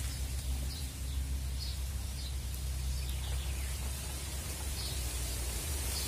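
Outdoor background noise: a steady low rumble and hiss, with a few faint, short bird chirps scattered through it.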